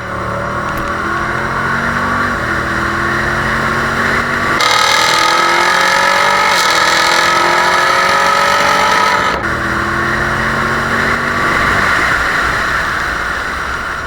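2016 Camaro SS's 455-horsepower 6.2-litre V8 pulling at wide open throttle, its pitch rising steadily in each gear. The pattern breaks about four and a half and nine and a half seconds in as the automatic upshifts, and the engine eases off near the end.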